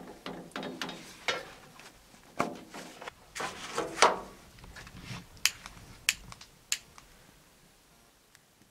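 Hand-work noises on metal: rubbing and squeaking with scraping in the first half, then three sharp clicks about half a second apart.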